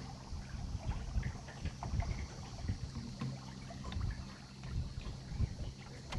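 Wind gusting across the microphone over water washing along the hull of a small sailboat under sail.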